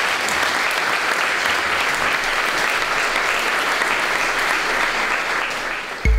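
Audience applauding steadily. Right at the end the applause gives way to the start of a deep electronic music sting.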